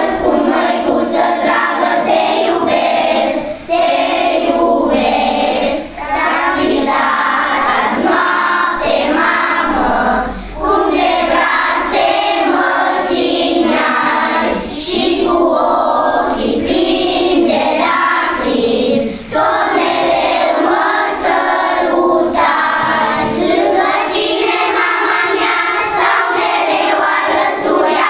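A group of young children singing a song together, with short breaks between phrases.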